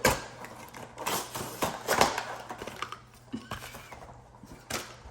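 Plastic toy packaging crinkling and crackling as it is handled and torn open, in irregular bursts that are busiest about a second or two in.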